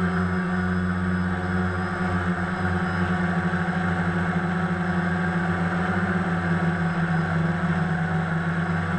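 DJI Phantom quadcopter's motors and propellers buzzing steadily in flight, heard through the GoPro's waterproof housing mounted on the drone.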